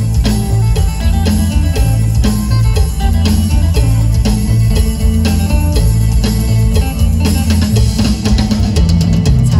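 Live band music for a lam tang wai dance: a plucked-string lead over a drum kit and heavy bass keeping a steady beat, with a quick drum run near the end.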